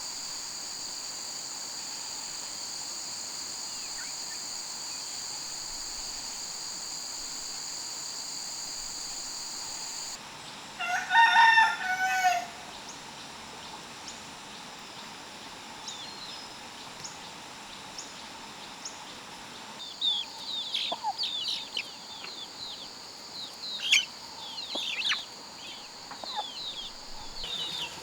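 Insects droning steadily at a high pitch; about ten seconds in, a rooster crows once, loud. In the last eight seconds, many short high chirps come in quick succession.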